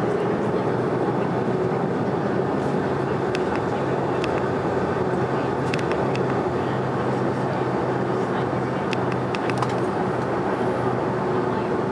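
Cabin noise of a Boeing 767-400ER taxiing with its engines near idle: a steady rumble and hum with one steady mid-pitched tone. A few light clicks come through over it.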